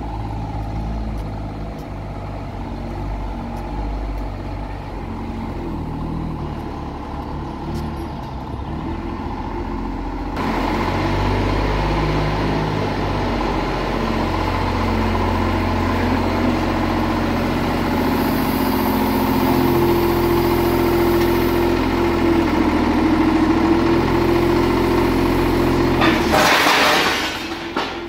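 Tractor engine running under load, getting louder and busier about ten seconds in as it works, with a rising whine in the second half. Near the end comes a loud burst of noise about a second long, after which the engine drops back briefly.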